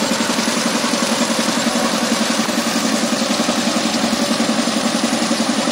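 Two-wheel power tiller's single-cylinder diesel engine idling with a steady, rapid chug.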